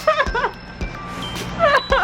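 A person's high, wavering whining cries, twice: once at the start and again near the end, over background music with held electronic notes.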